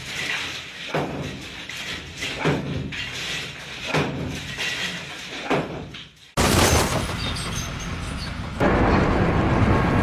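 A series of knocks or thumps, roughly one every second, echoing. They stop suddenly at a cut to a loud, steady rushing noise that gets louder about two seconds later.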